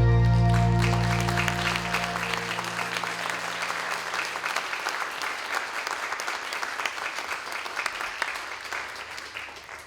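A worship band's final held chord dies away over the first few seconds while an audience applauds; the clapping carries on alone, then thins and fades out near the end.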